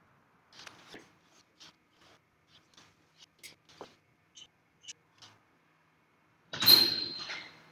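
Scattered light clicks and taps, then a loud clattering knock with a brief high metallic ring near the end.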